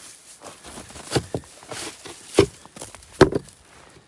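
Packed snow crunching and a salt lick block knocking as snow and hay are dug away from the block and it is lifted. There are several short sharp crunches, the loudest a little after three seconds in.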